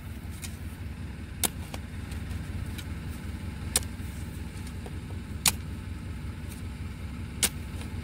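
Steel shovel blade digging into dirt around the base of a small tree trunk: four short sharp strikes about two seconds apart, over a steady low rumble like a running vehicle.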